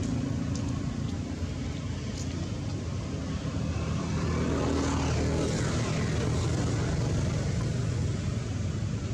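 A steady, low engine drone hums in the background.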